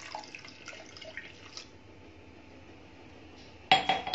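Warm water poured from a drinking glass into milk in a glass mixing bowl, splashing for about a second and a half. Near the end comes a single sharp, ringing clink of glassware.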